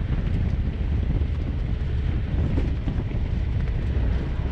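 Moving vehicle driving on a road: a steady low rumble with wind buffeting the microphone.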